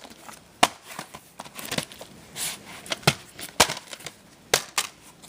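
A plastic DVD case and its wrapping being handled: a series of sharp plastic clicks and knocks with crinkling in between.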